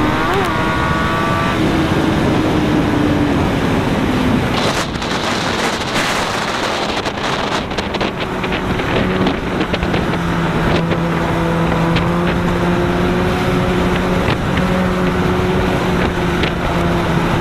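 Kawasaki ZX-10R's inline-four engine running at highway speed, heard from the rider's seat under wind noise on the microphone. The engine note drops over the first few seconds, the wind gusts in the middle, and then the engine settles into a steady cruise.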